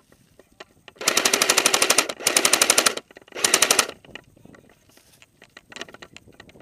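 Airsoft electric gun (AEG) firing on full auto in three short bursts, the first about a second long and the last the shortest, each a fast, even rattle of shots.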